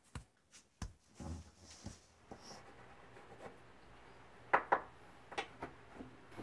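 Faint handling sounds: a few soft knocks or footfalls at first, then light rubbing of hands and paper on a wooden tabletop, with a few sharp taps near the end as a smartphone is picked up and handled on the table.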